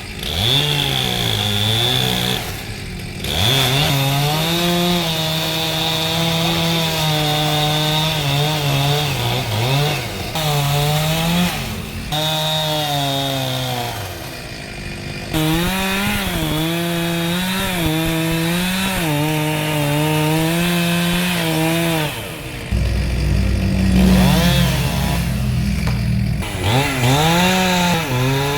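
Two-stroke chainsaw cutting wood, its engine note dropping as the chain bogs in the cut and rising again as it frees, with brief lulls when the throttle is let off. A deep rumble about three-quarters of the way through.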